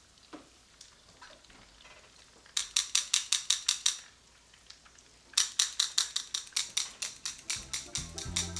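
Metal kitchen tongs clicked together rapidly, about six or seven clacks a second, in two runs. Background music with a drum beat comes in near the end.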